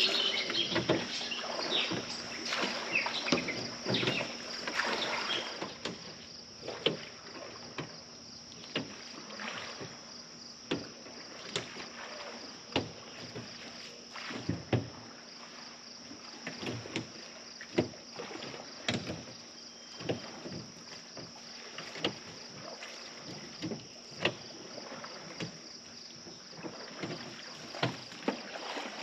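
Oars being worked on a small aluminium rowboat: short knocks about once a second from the oars in their oarlocks and against the hull, with light splashing. A steady high-pitched hum runs underneath.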